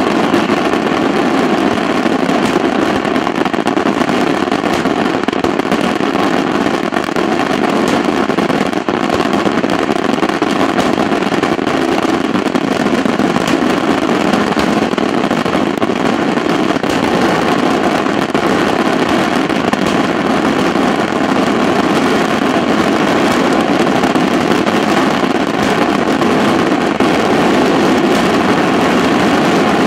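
Daytime ground fireworks barrage: firecrackers going off in a dense, unbroken crackle that holds steady throughout.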